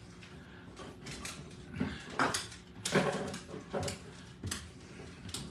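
Seasoning shaker bottles being moved about and knocked together while being dug out of a kitchen cabinet: a string of light, irregular clacks and knocks.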